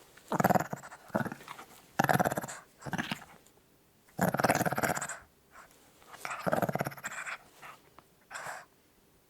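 A small dog growling in a series of short, rattling growls with brief pauses between them.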